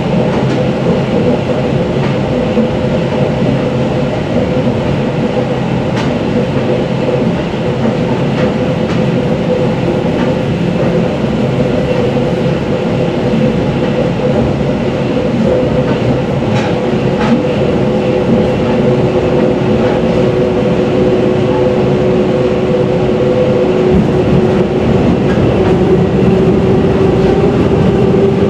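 EN57 electric multiple unit heard from inside its passenger compartment while accelerating. The traction motors and gearing hum in steady tones over a dense running rumble, with occasional sharp clicks of wheels on rail joints. About two thirds of the way in a second, slightly rising whine joins, and the whole sound grows gradually louder.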